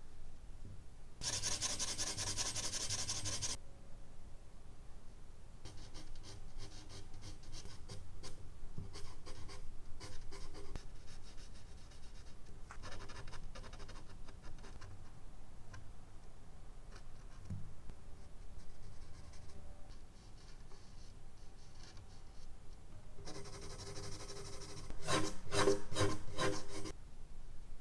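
Charcoal pencil scratching and rubbing on medium-surface drawing paper in spells of quick back-and-forth strokes. A strong spell comes about a second in, and the loudest near the end.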